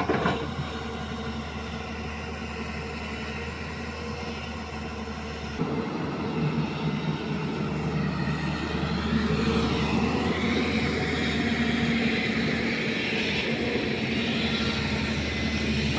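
JCB backhoe loader's diesel engine running steadily. Its sound changes abruptly about a third of the way in, then grows louder with the pitch rising and falling, as when the engine works harder.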